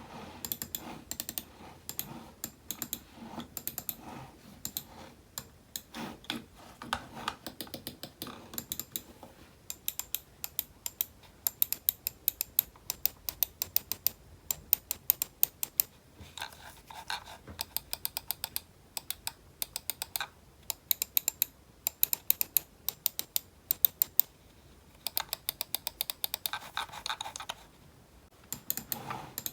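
Typing on a computer keyboard: rapid key clicks in runs of several strokes a second, broken by a couple of short pauses near the end.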